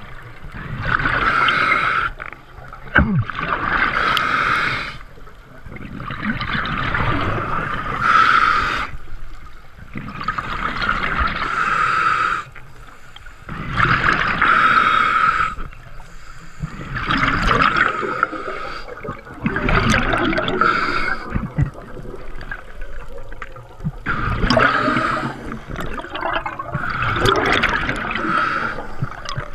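Scuba diver breathing through a regulator underwater: a hissing inhale, then a gurgling rush of exhaled bubbles, repeating every few seconds.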